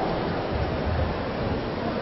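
Steady background noise of a badminton hall crowd between rallies: an even, hiss-like murmur with a few low rumbles.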